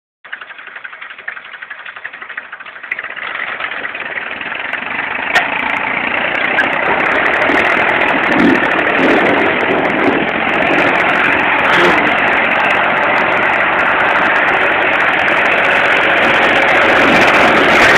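IMT 533 tractor's diesel engine running as the tractor is driven in circles, growing louder over the first few seconds and then holding steady. The sound is thin and muffled, as from a phone recording.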